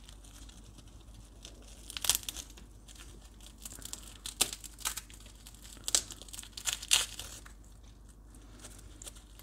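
Dry, papery garlic skins crinkling and tearing as cloves are peeled by hand: a string of short crackles and small rips, with quiet handling between them.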